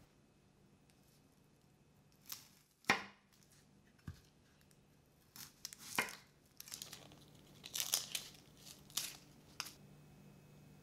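Chef's knife cutting an onion on a wooden cutting board: a series of separate cuts and taps on the board, the loudest about three seconds in and more of them close together in the second half, with the dry papery onion skin crackling as it tears.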